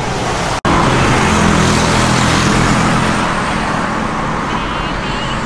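Steady roadside traffic noise, with a brief dropout at an edit about half a second in. A faint wavering melody comes in near the end.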